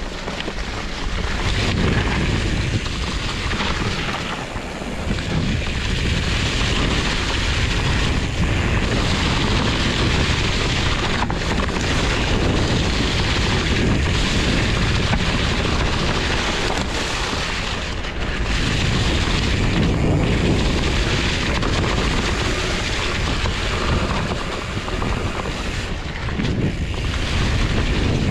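Wind rushing over the microphone with a heavy, steady low rumble from riding a Trek Farley 7 fat-tyre mountain bike over rough, wet trail.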